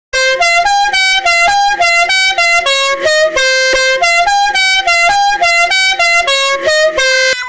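A loud tune of short, bright horn-like notes, several a second, stepping up and down in pitch, with one longer held note a little past the middle; it stops abruptly near the end.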